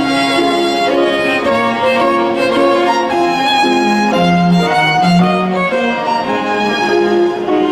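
Violin playing a lyrical melody in sustained, legato notes over a lower accompaniment.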